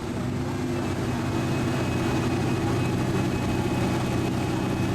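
Steady low mechanical hum of a running motor, with several held low tones over an even rushing background.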